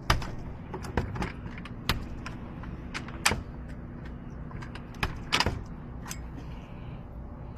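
Scattered metallic clicks and light scrapes of lock-picking tools working a locked door's lock, about six sharp ticks spread unevenly, over a steady low hum.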